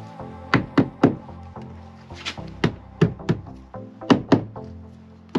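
Rubber mallet tapping rubber edging trim onto the metal edge of a van door's window opening: about a dozen dull knocks in quick runs of two to four, over background music.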